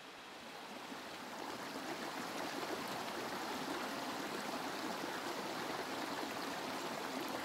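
Shallow rocky creek running and trickling over stones, a steady water sound that swells in over the first two seconds.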